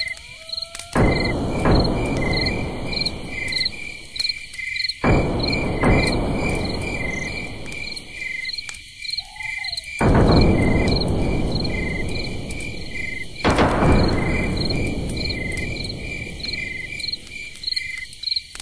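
A cricket chirping steadily, a short high pulse repeating about two to three times a second. Over it come four loud rushes of low noise, each starting suddenly and fading away over a few seconds.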